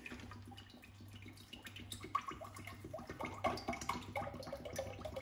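Sunflower oil glugging out of a plastic bottle as it is poured into a stainless steel pot, the gurgling growing busier from about two seconds in. A low steady hum runs underneath.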